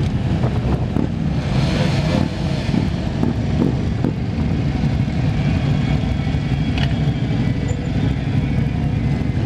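Steady low running of motor vehicle engines, with a few faint knocks over it.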